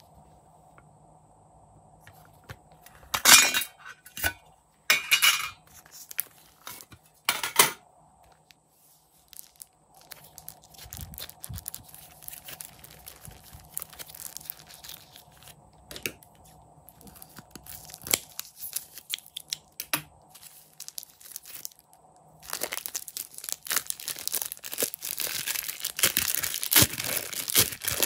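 Plastic bag full of slime being squeezed and handled, its plastic crinkling in scattered crackles, turning to dense, continuous crinkling about three-quarters of the way through as the slime is pushed out of the bag. Three loud, short crackles come in the first third.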